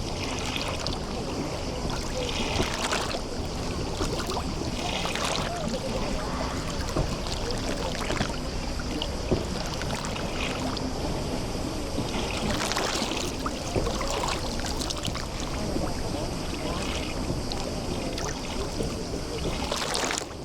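Sea water lapping and washing at the edge of a bay: a steady wash with a fuller splash every few seconds.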